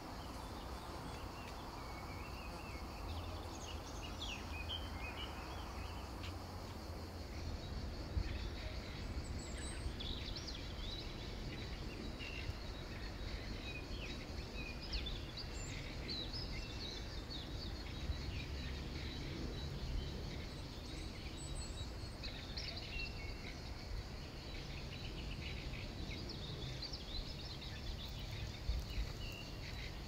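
Small birds chirping in short, scattered calls over a steady low rumble of background noise.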